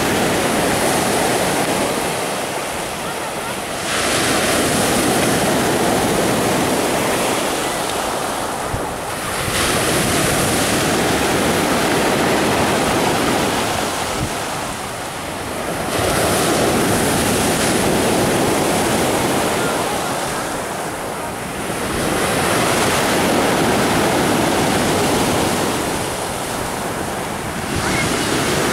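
Sea waves breaking and washing up a pebble beach. The surf swells and eases in a slow cycle, about every six seconds, as each wave comes in and draws back.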